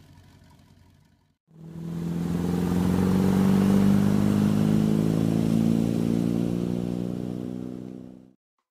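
Ski boat's MerCruiser 350 MAG MPI V8 inboard engine running under way over rushing water. After a faint hum and a short break it comes in loud about a second and a half in, its pitch rising slowly, then fades and cuts off suddenly near the end.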